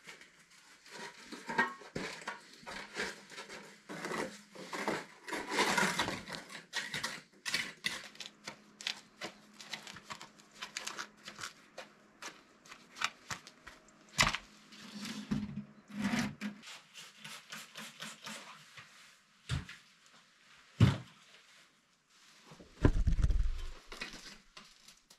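Mason's trowel working cement mortar: irregular scraping and clicking of the blade in the bucket and against the stone wall, with several sharper knocks. A short low rumble comes near the end.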